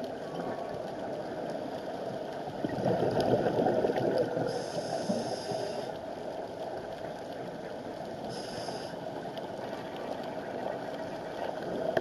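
Underwater sound through a camera housing: a scuba diver breathing through a regulator, with a louder gurgling burst of exhaled bubbles starting about three seconds in, over a steady underwater hiss.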